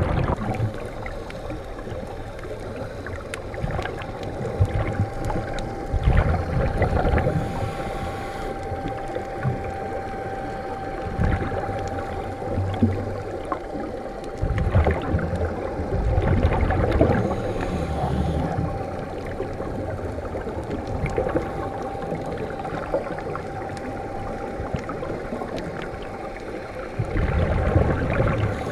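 Underwater sound through a camera housing: a scuba diver's regulator exhaust, with bubbles rumbling out in bursts every few seconds, over a steady underwater hiss and a faint steady tone.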